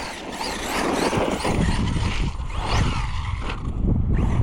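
Arrma Fireteam RC truck driving hard, its brushless motor whining up and down in pitch several times as the throttle is worked, over a rough noisy rumble of the drivetrain and tyres.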